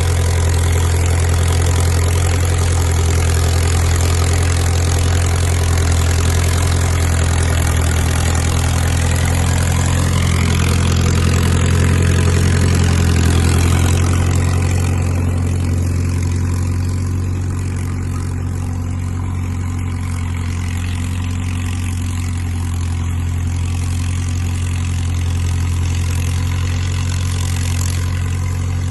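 Crawler dozer's diesel engine running steadily with a deep, even note. About halfway through it eases off and gets a little quieter.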